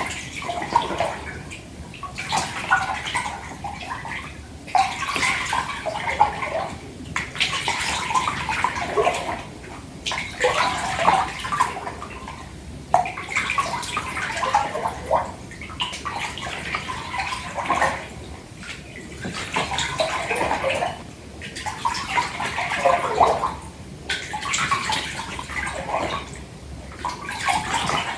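Hands sloshing bath water back and forth in a filled bathtub, the splashing swelling and easing in waves every two to three seconds.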